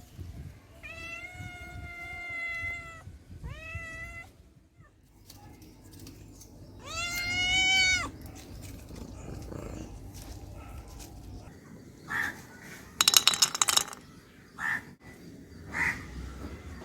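An animal calling three times with long, drawn-out cries, the third and loudest about seven seconds in; then a short burst of rapid clicking about thirteen seconds in.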